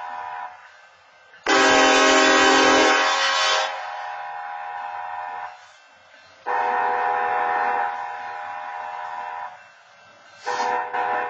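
Diesel locomotive horn sounding the long-long-short-long grade-crossing signal in separate blasts, with quieter gaps between. The blast about a second and a half in is much louder than the rest. A long blast follows about six and a half seconds in, then a short one near the end.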